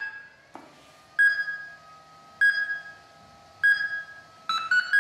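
Power-on beep sequence from an RC car's electronic speed controller on an 11.1 V LiPo: a click, then three evenly spaced beeps about a second apart, then a quick run of several tones near the end. A faint steady whine sits underneath.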